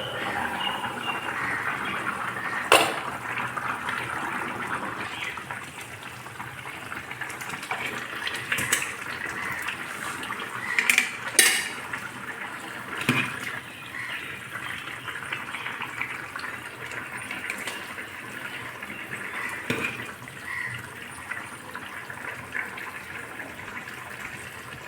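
Wet chicken curry with its gravy being ladled and poured from a pan into a pressure cooker: liquid sloshing and pouring, with a few sharp clinks of a metal spoon against the pots.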